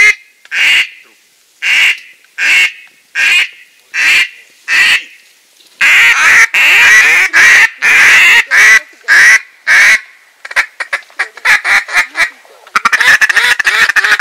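Hand-blown duck call imitating a mallard hen: single loud quacks about one every 0.7 seconds, then a run of longer, quicker quacks in the middle, ending in a fast chattering run.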